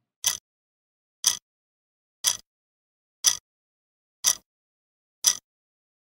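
Countdown clock ticking: a single sharp click each second, with silence in between.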